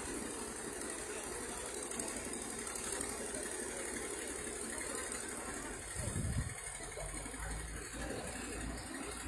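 Hydraulic excavator's diesel engine running steadily, heard from across the pit, with a brief low thump about six seconds in.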